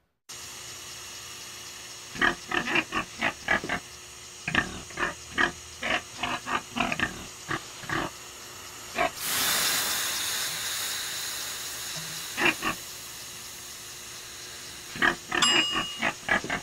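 A pig grunting in short bursts, on and off. About nine seconds in, a loud hiss of steam rises suddenly as water is ladled onto hot sauna stones, then slowly fades over several seconds.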